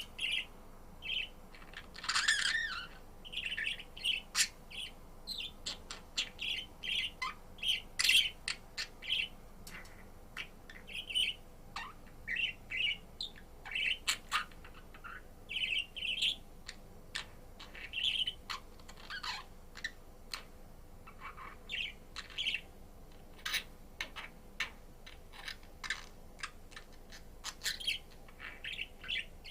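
Budgerigar chirping in a rapid run of short calls, with sharp clicks scattered between them and one longer, louder call about two seconds in.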